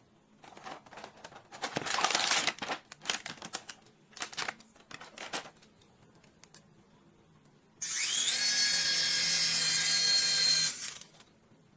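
Plastic packaging and parts of a small toy being handled, with scattered clicks and rustles. Then a hand-sensing mini flying ball toy is switched on: its tiny motors whine up quickly and spin the rotor blades in a steady high whine for about three seconds, then cut off.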